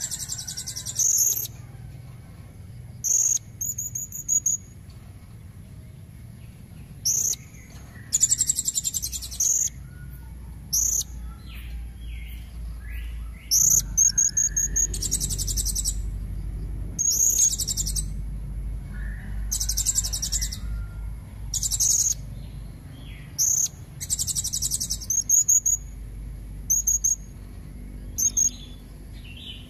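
Female blue-crowned hanging parrot (serindit) giving short, shrill, very high-pitched calls, some single and some as quick half-second trills, repeated every second or two; it is a lure call meant to draw in males. Fainter, lower bird notes can be heard underneath.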